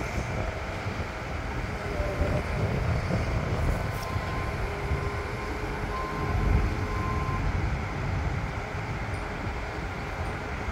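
Diesel engine of a tracked excavator running steadily, a continuous low rumble.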